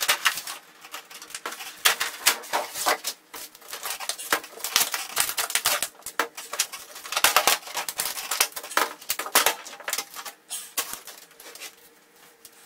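Plastic diffuser plate and optical film sheets of an LED TV backlight being handled and lifted off, a dense irregular run of crackles and clicks that thins out near the end.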